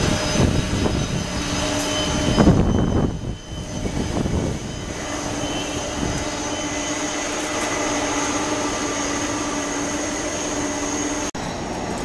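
Boeing 747-400's jet engines running at taxi power as the airliner rolls slowly past: a steady whine held over a low rumble, swelling louder about two to three seconds in. The sound cuts out for an instant near the end.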